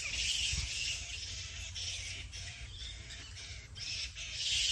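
A roost of bats hanging upside down and calling, a dense high-pitched chatter of many overlapping calls with a few short lulls, loudest near the end.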